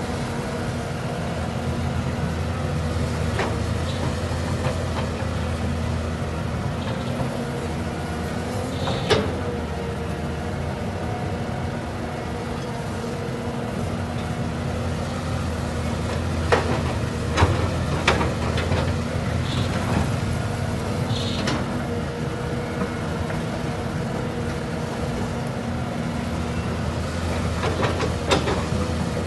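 Excavator engine running steadily under a low hum, with a few sharp metallic knocks now and then: one about a third of the way in, three in quick succession past the middle, and two near the end.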